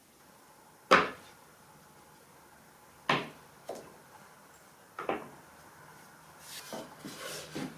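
Plywood panels knocked down onto a table saw top and against each other as they are handled: three sharp wooden knocks about two seconds apart, the first the loudest, then lighter shuffling and knocking near the end.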